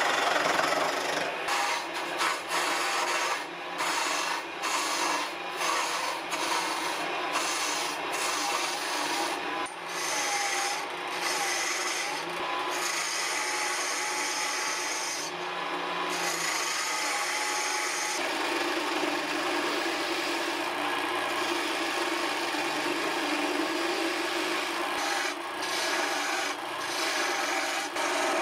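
Gouge cutting a spinning maple handle on a small motor-driven mini lathe: a continuous scraping, shaving hiss of wood being cut, with brief breaks in the high hiss where the tool comes off the wood.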